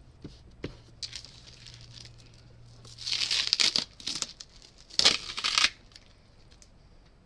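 Blue painter's tape being ripped off packing, in two loud tearing pulls about two seconds apart, with a few small clicks before them.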